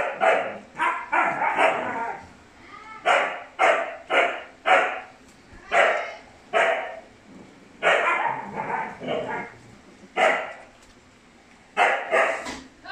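A dog barking repeatedly: about twenty short, sharp barks in clusters, with brief pauses between them.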